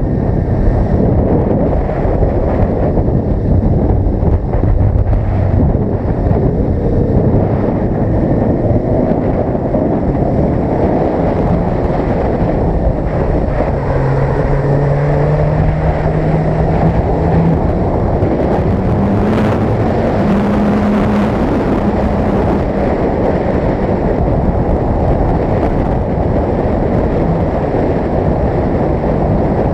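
Heavy wind rush on the camera microphone over a Suzuki GSX-R sport motorcycle's engine on the move, the engine note shifting up and down in pitch as the throttle changes through the bends.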